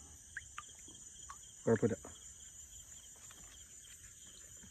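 Night insects, crickets, trilling steadily in a continuous high-pitched chorus, with a few faint scattered ticks.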